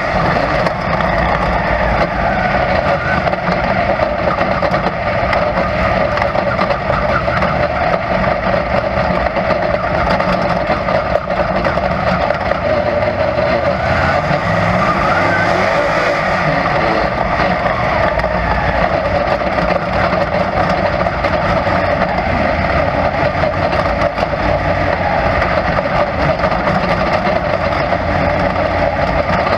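Dirt late model race car's V8 engine running at racing speed, heard loud and steady from inside the cockpit.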